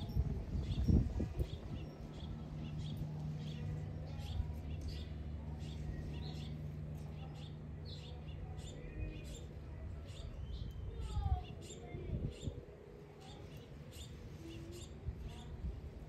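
Small backyard birds at a seed feeder chirping, many short high chirps coming several times a second. A steady low hum runs underneath, and there are a few low thumps about a second in and again near the three-quarter mark.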